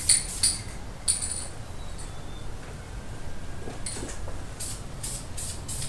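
An aerosol spray can's mixing ball clinking in a few short separate bursts as the can is handled and shaken, over a low steady hum.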